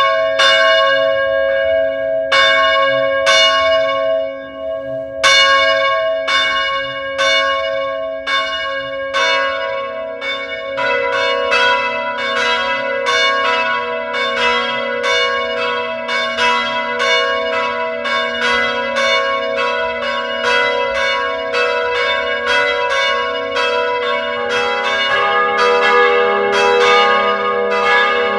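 Church bells ringing: separate strokes about once a second at first, with a short pause, then about ten seconds in the ringing quickens into a dense run of overlapping bells at several pitches.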